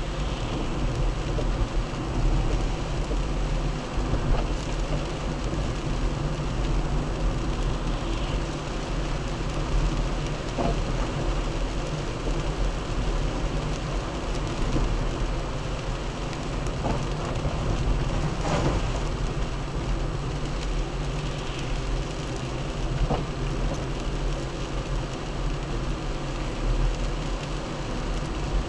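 Car driving on a wet road in the rain, heard from inside the cabin through a dashcam's built-in microphone: a steady low engine and tyre rumble with the hiss of rain and spray.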